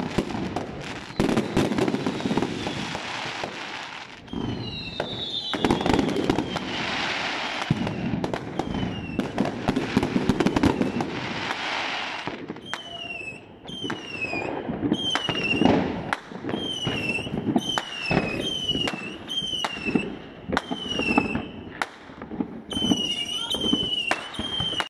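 Fireworks going off: dense crackling bursts and bangs for the first half, thinning to scattered bangs later. From about halfway, a high falling whistle repeats roughly once a second.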